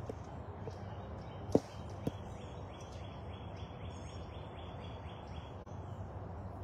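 Outdoor ambience: a steady low hum with a fast, high run of short repeated chirps, about six a second, from about two seconds in until near the end. Two sharp clicks stand out about a second and a half in and half a second later.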